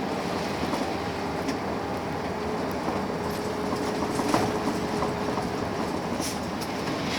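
Steady cabin noise inside a moving coach bus: the drone of engine and road, with a faint steady whine and scattered light rattles and clicks from the interior.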